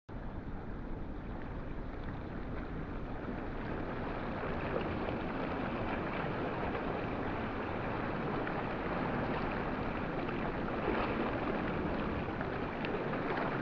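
Steady outdoor wind and water noise, an even hiss with no distinct engine tone, growing slowly louder.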